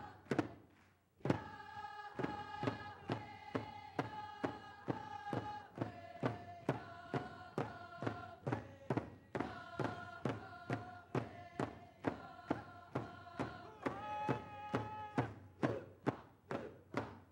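Group of voices singing a Tlingit dance song in long held notes over a drum beaten at a steady pulse of about two strokes a second; this is the group's exit song. Drum and singing break off briefly, then come back in on a loud stroke about a second in.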